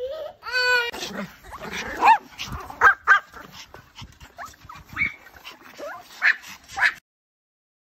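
A dog whining and barking in a string of short, pitch-bending cries, beginning with a high whine; the cries cut off suddenly about seven seconds in.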